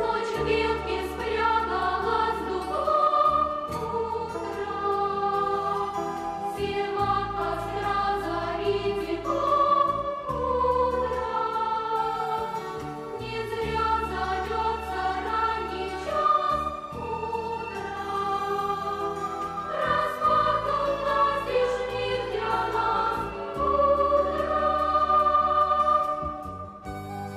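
A group of voices singing a song together in chorus over a band accompaniment with a bass line. The singing breaks off shortly before the end.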